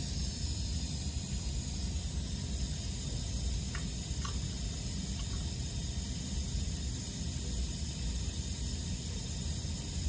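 Water running steadily out of a plumbed water line's tubing into a stainless steel sink, a constant splashing hiss.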